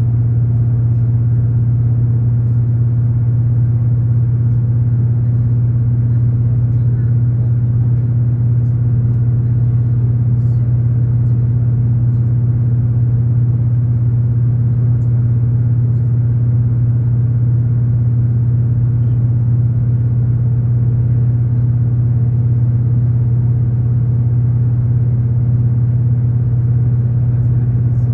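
Ride noise of a V/Line diesel train heard from on board: a steady low engine drone and running rumble that holds unchanged at an even speed.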